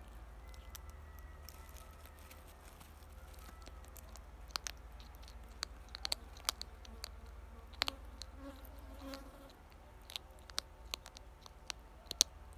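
European hedgehog chewing dry cat kibble close to the microphone: irregular sharp crunches, sparse at first and more frequent from about four seconds in, the loudest near the end.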